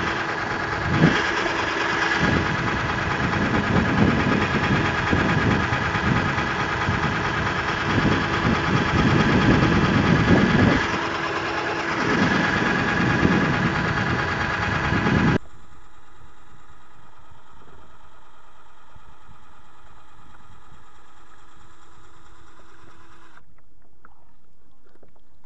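Cordless drill running steadily as the motor of a drill-driven kayak propeller, a sustained mechanical whine with an uneven low rumble under it. About 15 s in it drops abruptly to a much fainter steady whine, which stops a couple of seconds before the end.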